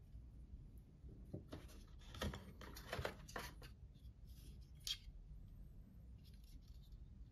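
Quiet handling sounds as a white USB cable is put down and a plastic Samsung wall charger is lifted from its cardboard box: a cluster of rustles and light knocks from about one and a half to three and a half seconds in, then one sharp click near five seconds.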